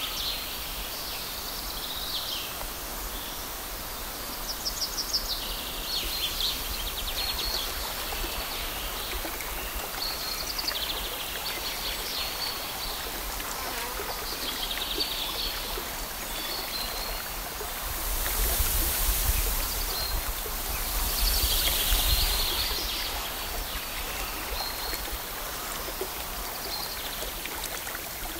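Outdoor ambience: a small songbird singing short, repeated trilled phrases every few seconds over a steady rushing background noise, which swells louder twice about two-thirds of the way through.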